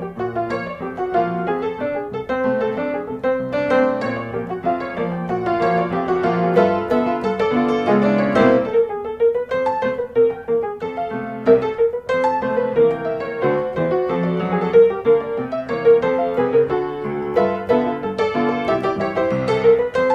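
Background piano music with a gentle melody.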